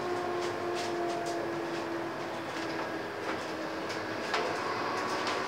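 Inside a Scania N230UD double-decker bus on the move: the drivetrain runs with a steady whine over road noise, and the body rattles and clicks now and then. A higher whine comes in about four seconds in.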